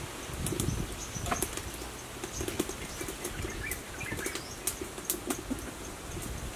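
Crisp rustling and snapping of fresh leaf lettuce as the leaves are handled and pulled apart by hand, with scattered sharp clicks.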